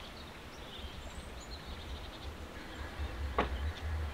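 Faint bird chirps outdoors over a low, gusting rumble of wind on the microphone, with one sharp click about three and a half seconds in.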